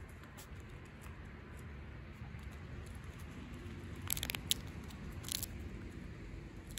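Striped skunk eating peanuts and seeds off a plate: soft crunching and small clicks as it chews and noses through the food, with two louder runs of crunching about four and five seconds in.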